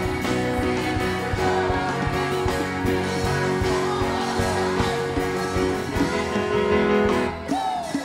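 Live worship band playing, with guitars, drums and keyboard under a group of singers.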